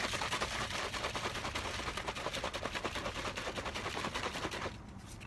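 Shaker bottle of pre-workout powder and water shaken hard: a fast, even rattle and slosh of rapid strokes that stops near the end.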